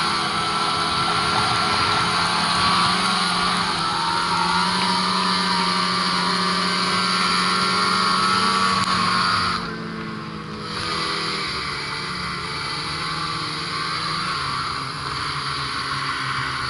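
Ski-Doo Mach Z 1000 SDI snowmobile's two-stroke engine running steadily at speed. Its level drops sharply for about a second near the middle as the throttle eases, then it runs on a little quieter.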